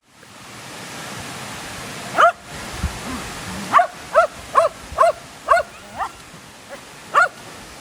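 A dog barking: about eight short barks, one about two seconds in, a quick run of six, then a last one near the end, over a steady rushing noise.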